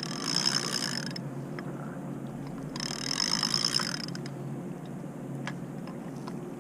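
Fishing reel cranked in two bursts of about a second each, a whirring ratchet-like clicking, over a steady low background of water and wind.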